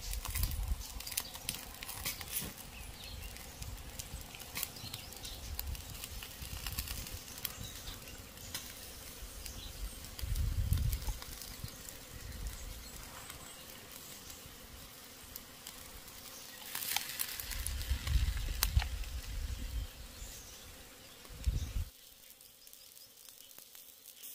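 Insects buzzing steadily, with many scattered clicks and a few low rumbling swells; the sound drops off abruptly near the end.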